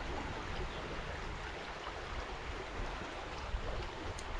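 Water of a small stream running steadily over a riffle, with one brief tick near the end.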